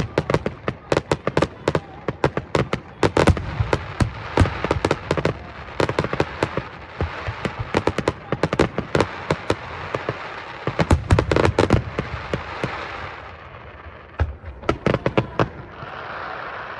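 Fireworks display: a rapid barrage of sharp bangs and crackling, several reports a second. It thins out about three-quarters of the way through, then a last quick cluster of bangs comes and a crackling tail fades.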